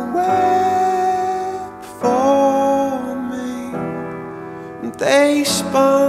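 Background music: a slow song with keyboard accompaniment and long held sung notes.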